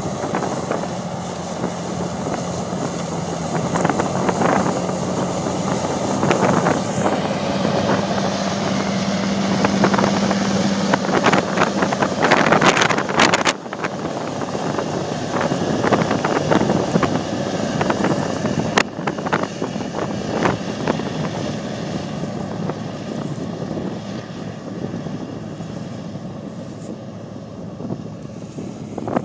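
Large four-wheel-drive tractor's 18.1-litre six-cylinder turbo diesel working under load while pulling a tillage implement. It holds a steady drone for the first dozen seconds, then grows fainter as the tractor moves off, with wind noise on the microphone.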